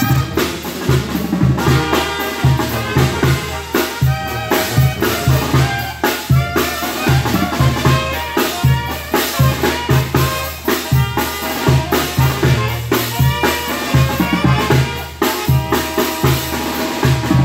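Tamborazo brass band playing: trumpets, saxophones and sousaphone over a driving beat from the tambora bass drum and snare drums with cymbal, the drums prominent throughout.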